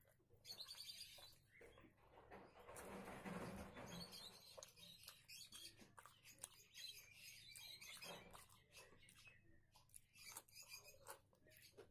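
Faint close-up eating sounds: wet chewing with mouth clicks and smacks, and fingers squelching rice and egg curry against the plate. There is a fuller, louder stretch of chewing about three seconds in.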